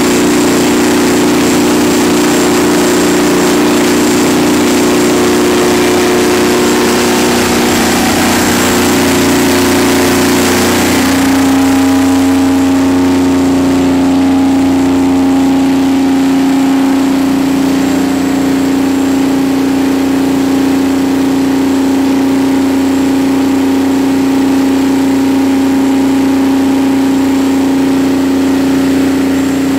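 Detroit Diesel 12V92 two-stroke V12 diesel engine of a 500 kW generator set running steadily during a load test. About eleven seconds in, the sound changes: the high hiss drops away and a single lower, steady tone takes over.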